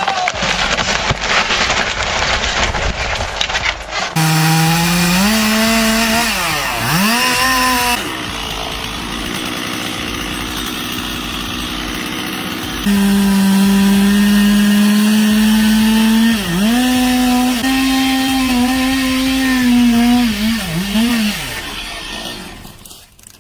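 Two-stroke chainsaw running at high revs, its pitch dipping sharply and recovering several times. Between the runs are stretches of rougher noise without a steady pitch, and the sound changes abruptly at each cut between clips.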